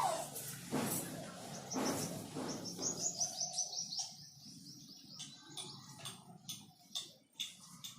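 Birds chirping in the background, with a quick trill of high chirps about three seconds in and scattered single chirps after. Two short rushing noises come in the first two seconds.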